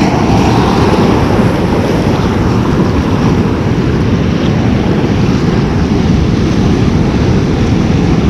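Sea surf breaking and washing over shore rocks, mixed with wind buffeting the microphone: a loud, steady rush with a heavy low rumble.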